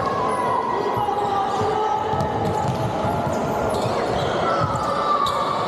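A basketball bouncing on a hardwood court as it is dribbled, with voices of players and onlookers echoing in a large hall.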